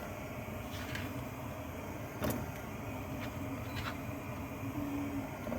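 Steady hiss from a frying pan of hot oil on the stove as meat goes in, with a few sharp clicks and knocks of the meat and utensils against the pan; the loudest comes about two seconds in.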